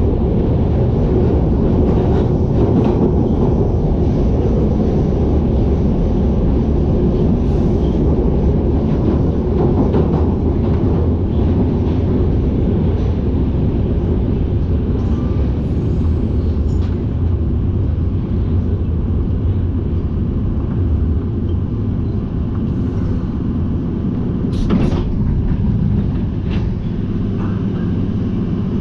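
London Underground 1973 stock train running through a tube tunnel, heard from inside the carriage: a loud, steady rumble of wheels and running gear, with a few sharp clicks about 25 seconds in. The rumble eases slightly near the end as the train draws into a station.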